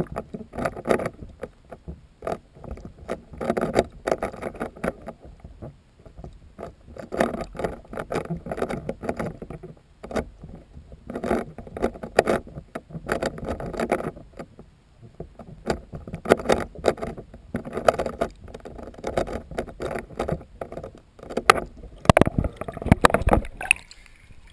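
Bathwater sloshing in a filled bathtub in irregular bursts every second or two, with scattered clicks and a few sharper knocks near the end.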